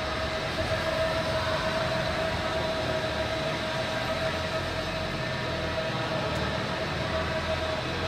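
Steady machine drone of a large warehouse's room noise, with a constant mid-pitched hum over a low rumble.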